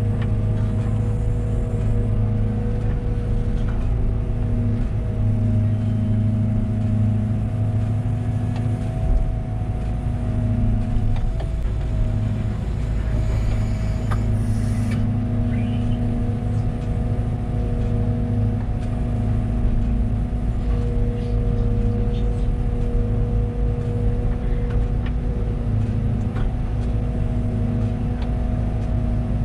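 Liebherr 914 Compact wheeled excavator's diesel engine running steadily under work, a constant hum with a few held tones that shift slightly now and then.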